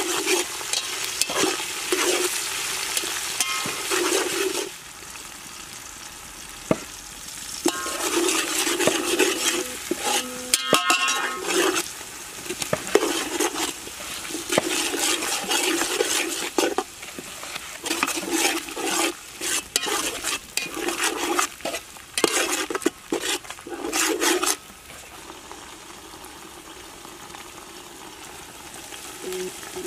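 Metal ladle scraping and stirring onions frying in a metal pot, in quick runs of strokes over a steady sizzle. The stirring pauses about five seconds in and again near the end, leaving only the sizzle, and a few ringing clinks of metal on metal come about eleven seconds in.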